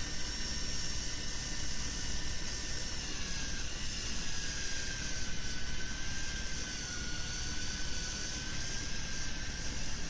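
Electric deep-drop fishing reel's motor whining steadily as it winds in line, its pitch dipping slightly a few seconds in, over a steady rush of wind and sea.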